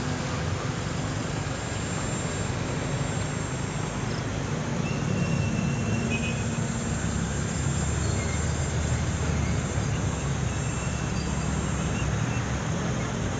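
Wind buffeting the microphone as a steady low rumble, with the electric motor and propeller of a foam RC plane whining faintly and briefly a couple of times in the distance.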